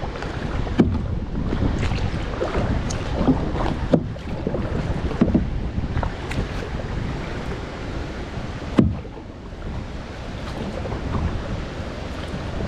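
Kayak paddling: paddle strokes in the water with wind buffeting the microphone, and a few sharp knocks, the loudest about nine seconds in.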